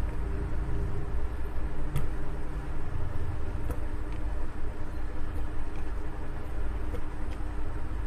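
A steady low mechanical rumble with a faint hum, plus a few light knocks as banana pieces are dropped into a glass blender jar.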